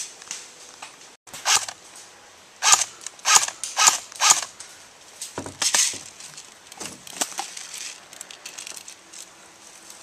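Airsoft guns firing single shots: about six sharp cracks, the middle ones roughly half a second apart, then a few fainter ones.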